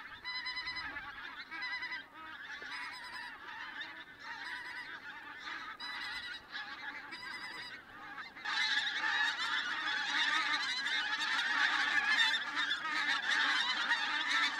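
Flock of pink-footed geese calling in flight: scattered separate honks at first, then, about eight seconds in, a much louder dense chorus of many geese calling together.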